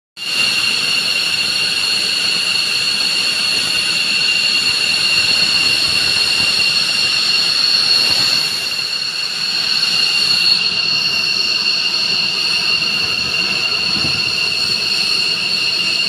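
Aircraft turbine engines running on the ground: a steady high-pitched whine over a constant rushing roar.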